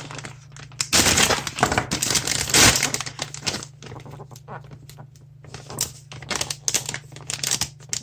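Plastic packaging crinkling and tearing as a sealed cable bag is opened and the cable is pulled out: a dense burst of crackling for about two seconds, then scattered crinkles and clicks.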